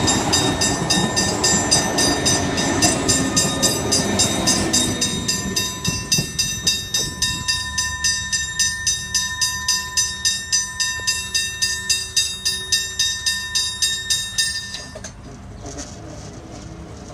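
Alstom Comeng electric train's running rumble fading over the first few seconds, under a bell struck rapidly at about four strokes a second. The ringing stops suddenly near the end.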